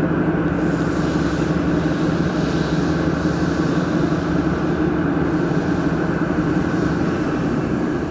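A machine running steadily: a constant low hum with a rushing, fan-like noise over it.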